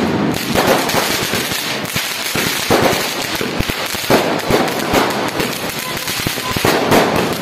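Fireworks going off in quick succession: many sharp pops and crackles from aerial bursts over the steady hiss of a ground fountain spraying sparks.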